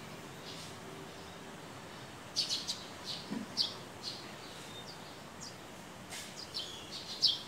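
Small birds chirping: short, high chirps in quick clusters, starting about two seconds in over a faint steady background.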